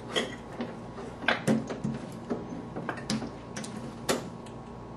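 Condiment dispenser's pump being pressed by hand to prime it: a series of clacks and knocks at uneven intervals, with the loudest around a second and a half in and again near the end.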